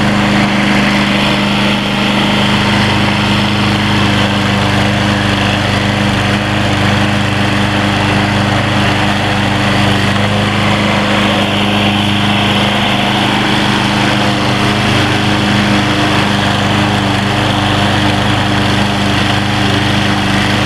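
Troy-Bilt TB230 21-inch gas push mower running steadily at full throttle while cutting thick centipede grass.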